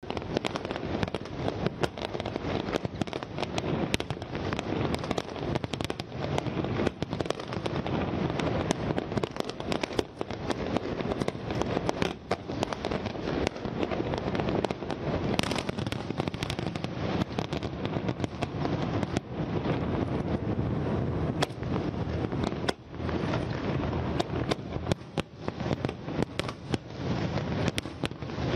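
Fireworks display in full barrage: shell bursts, bangs and crackle overlap without a break, with one brief lull about three-quarters of the way through.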